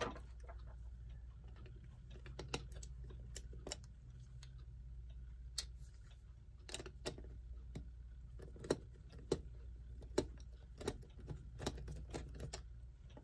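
Light metallic clicks and clinks of a wrench being handled and tried on small nuts, scattered at irregular intervals.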